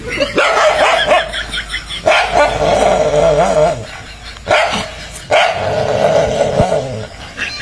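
A dog barking and snarling aggressively at its own reflection in a mirror, in about four long stretches with a wavering pitch and short breaks between them.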